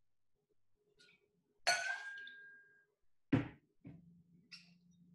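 Cocktail bar tools handled while building a drink: a steel jigger clinks against the metal shaker tin with a short ringing tone, then a dull thump about a second and a half later and a lighter clink near the end.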